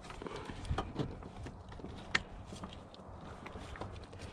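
Light, irregular clicks and taps of metal parts and hand tools on a car battery's side-post terminals as new terminals are fitted.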